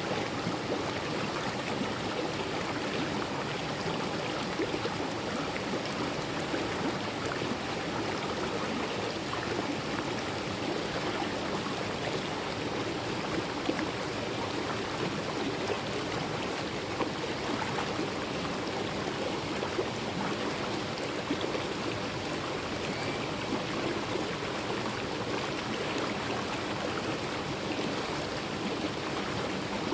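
Mountain valley stream flowing, a steady rushing of water.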